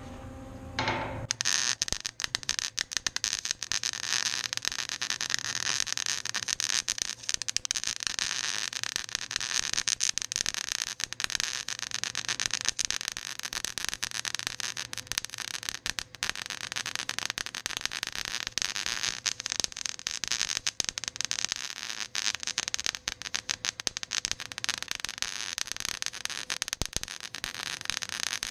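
Electric arc welding: the arc strikes about a second in and then runs steadily with a dense, even crackle, the sizzling-bacon sound of a welding arc.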